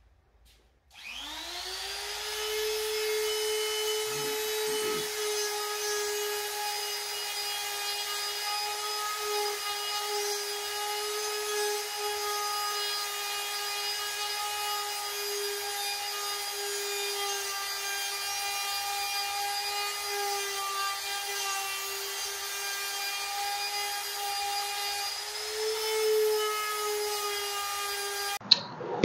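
Pneumatic straight die grinder with an abrasive roll porting the cast-iron intake manifold of a Farmall Super C. It spins up with a quickly rising whine about a second in, then holds a steady high whine as the abrasive rubs the iron, and shuts off just before the end.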